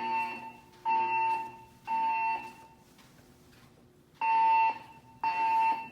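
Siemens MXL-V fire alarm speakers sounding the temporal-three evacuation tone: three short tones about a second apart, a pause, then two more as the next round of three begins.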